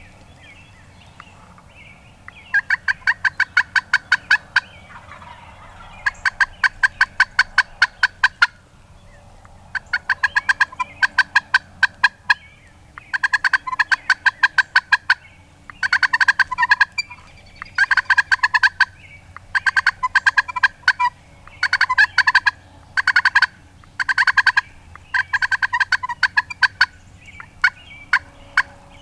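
Wooden turkey box call worked in about ten runs of rapid, sharp, rasping yelps, each run about two seconds long with short pauses between, imitating a hen turkey.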